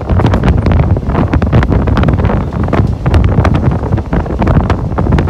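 Heavy wind buffeting the microphone at the open door of a moving passenger train, over the low rumble of the coaches running on the track.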